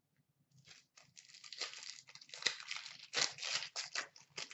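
A wrapper on a pack of 2015-16 Upper Deck O-Pee-Chee Platinum hockey cards being torn open and crinkled by hand. The crinkling starts about half a second in and runs in quick, irregular rustles.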